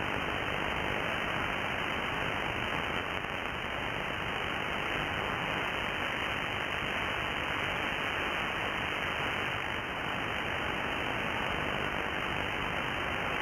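Steady static hiss from a 2 m SSB receiver (a WebSDR tuned to 144.170 MHz USB), cut off at the top of the receiver's audio passband, with no tones standing out above the noise.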